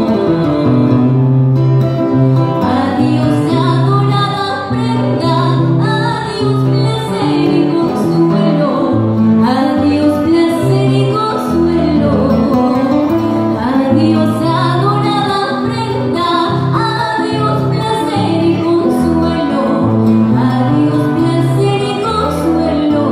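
A woman singing into a microphone with acoustic guitar accompaniment and a bass line underneath, in an amplified live performance.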